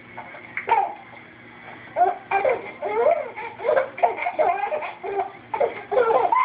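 Young child with the hiccups laughing in repeated short bursts. There is one short sharp vocal burst about a second in, then near-continuous laughter from about two seconds on.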